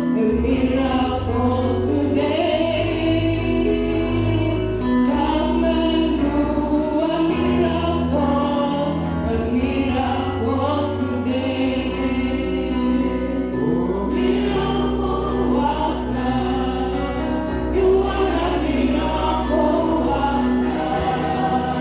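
A choir singing a gospel song together, with instrumental accompaniment holding long bass notes underneath.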